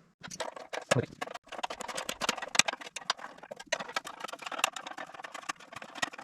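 Ratchet wrench clicking in quick irregular runs as it backs bolts off the engine, with a few sharper metal knocks among the clicks.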